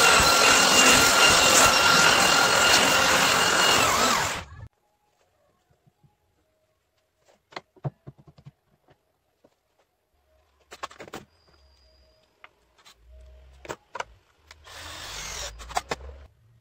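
Handheld electric power tool running on the wooden table-saw top with a steady whine, switched off about four and a half seconds in. After that, scattered light knocks and clicks of wood and tools being handled, and a brief scraping rustle near the end.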